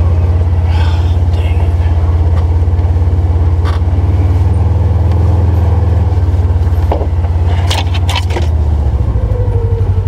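Polaris Ranger Northstar XP 1000 side-by-side's engine droning steadily inside its closed cab while driving a dirt trail, with a few sharp knocks and rattles from the cab about eight seconds in.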